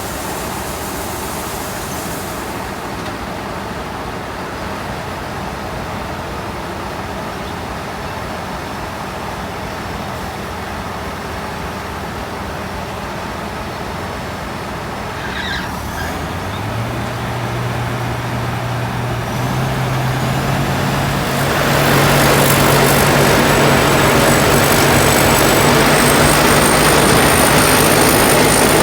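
Combine harvester's diesel engine running steadily, then just past halfway its pitch steps up and the machine grows much louder as it is revved up. A thin high whine rises slowly near the end.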